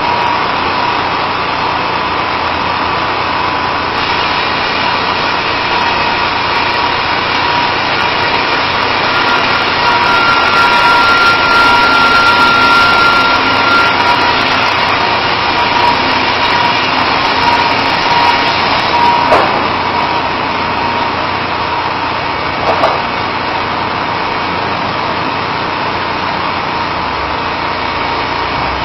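Caterpillar wheel loader's engine running hard as it works logs, a steady mechanical noise with a thin steady whine over it, louder for a while in the middle.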